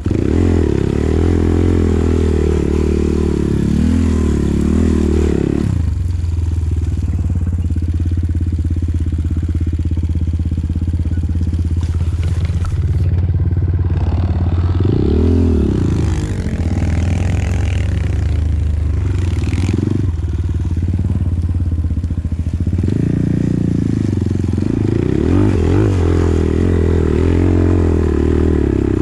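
Enduro dirt bike engine running and revving up and down as it is ridden off-road. It revs hard for the first several seconds, runs steadier through the middle with one brief rev, then revs repeatedly again from a little past two thirds of the way through.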